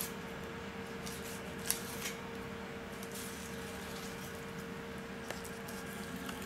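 Filleting knife cutting a pollack fillet away from its belly bones on a plastic cutting board: a few soft clicks and scrapes, the sharpest about two seconds in, over a steady low hum.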